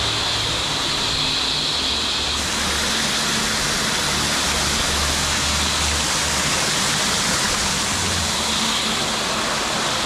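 Creek water rushing steadily over a small cascade between boulders, close by. The rush grows fuller about two seconds in.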